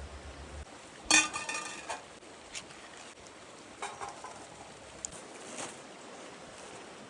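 Metal gear clinking as it is handled: one loud metallic clank about a second in that rings on briefly, then a few lighter clicks and clinks.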